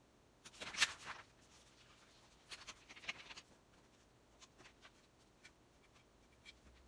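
Pencil and paper work: short scratchy rustles of paper, a plastic ruler and a pencil being handled and drawn across the sheet, the loudest about a second in and another run around three seconds, then a few faint light taps.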